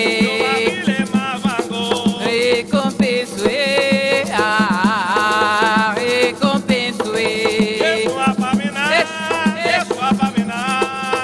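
Afro-Umbanda sung prayer: voices singing a chant melody with wavering held notes over shaken rattles.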